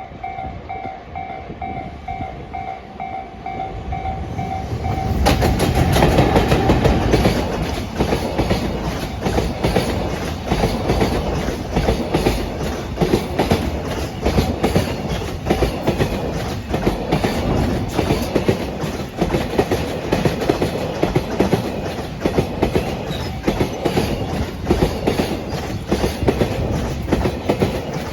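A level crossing warning bell rings in a rapid, even pulse. About five seconds in, a JR Freight EF210 electric locomotive passes loudly, and a long train of container flat wagons follows, rattling with rapid clacks of wheels over the rail joints.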